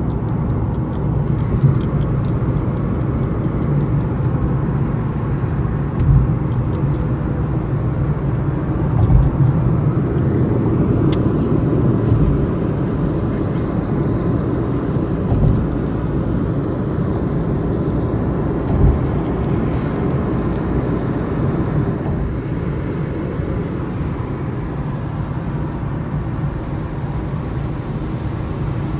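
Steady in-cabin road noise of a car driving on a wet motorway: a continuous low rumble of tyres and engine, broken by a few dull thumps.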